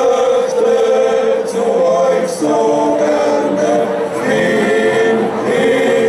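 A choir singing in harmony: long held chords that change every second or two.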